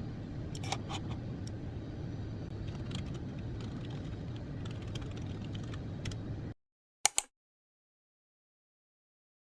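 Steady low rumble, like a vehicle in motion heard from inside, with scattered faint clicks. It cuts off abruptly about two-thirds of the way through, and two sharp clicks follow a moment later.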